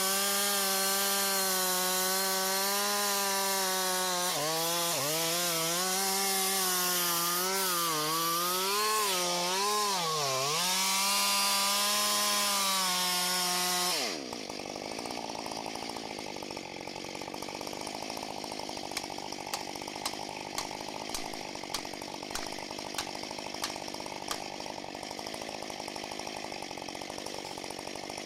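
Husqvarna 545 two-stroke chainsaw running at full throttle, its pitch dipping several times as the chain cuts into wood under load. About halfway through it drops to idle, and a run of sharp clicks is heard over the idle.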